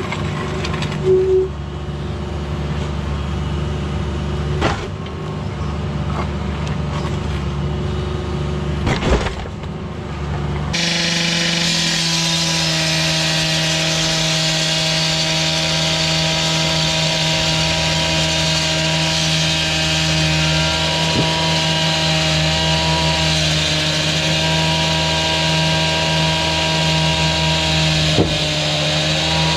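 A low engine running with a few knocks, then about ten seconds in a power saw starts cutting blacktop, running loud and steady at a constant high pitch with a harsh hiss of blade on asphalt.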